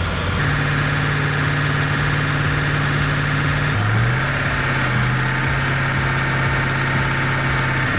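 Heavy machine's engine running steadily under a hydraulic stump-splitting ram, its pitch stepping down slightly about four seconds in.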